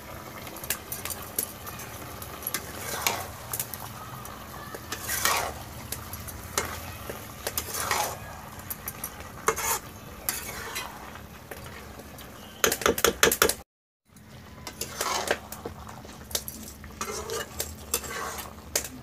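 Flat metal spatula scraping and stirring chicken pieces in a kadhai, with irregular sharp scrapes against the pan over the steady sizzle of the frying curry. A quick run of scrapes comes just before the sound drops out for a moment about two-thirds of the way in.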